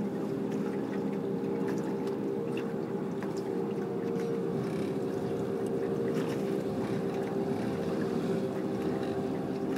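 Boat engine running steadily at idle, an unchanging hum, with a few faint clicks.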